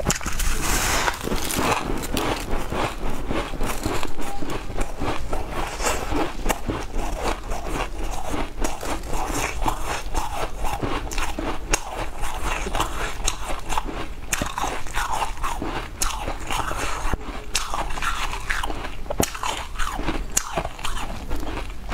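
Frosty ice being bitten and chewed close to a clip-on microphone: a continuous run of crisp, crackling crunches.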